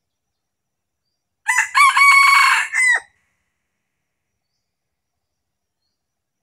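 A red junglefowl cock crowing once, close and loud: a short crow of about a second and a half that opens with a couple of clipped notes and ends with a drop in pitch.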